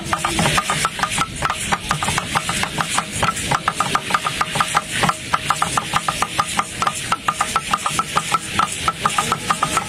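Ceremonial drum beaten in a fast, even rhythm of several strokes a second for a Mexica (Aztec) dance, with a rattling hiss above the beat.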